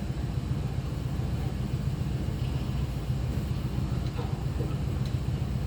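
Steady low machine hum of operating-room equipment, even throughout.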